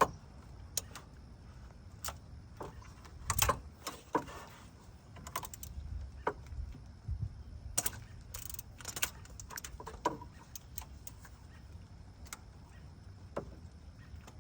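Irregular metallic clicks and clinks of hand tools on the engine's bolts, with a few louder knocks.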